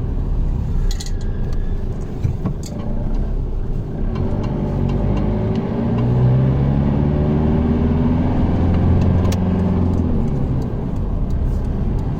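Motor vehicle engine running as the vehicle drives, its note climbing through the middle and easing off near the end.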